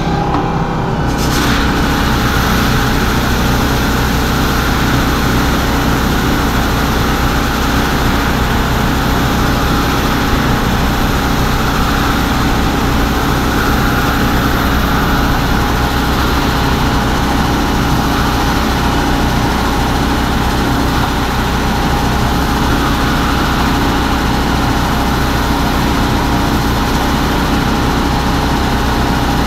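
Farm tractor engine running steadily under a constant load as it pulls a planter, an even drone that barely changes.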